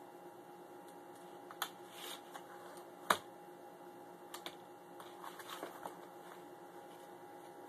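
Scattered scratching and rustling of a cat's claws and body on a corrugated cardboard scratching pad as it rolls and paws at it, with a sharper tap about three seconds in.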